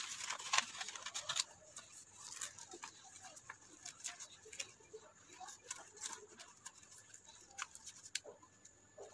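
A sheet of craft paper rustling and crackling as it is handled and folded, busiest in the first second and a half, then a sparse scatter of light crackles and clicks.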